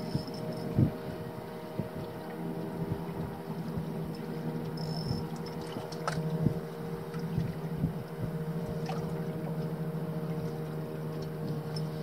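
Small sailboat's outboard motor running steadily at low speed, an even drone, with water sloshing against the hull and a few light clicks.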